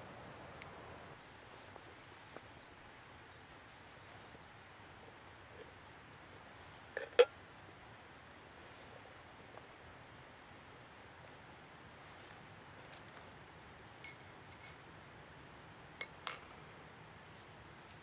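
Faint outdoor hiss broken by a few sharp clicks and clinks as fire-lighting gear is handled on stones. There is a loud double knock about seven seconds in, and near the end a louder metal clink with a brief ring that fits a steel fire striker set down on rock.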